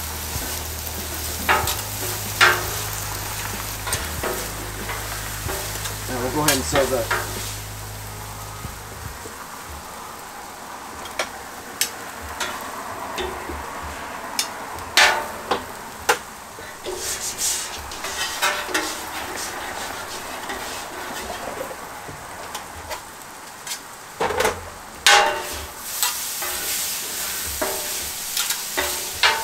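Scallops and vegetables sizzling on a hot flat-top griddle while a metal spatula and fork scrape and clack against the steel plate. The clicks come scattered throughout, with a quick cluster about six seconds in and the loudest strikes around 25 seconds in.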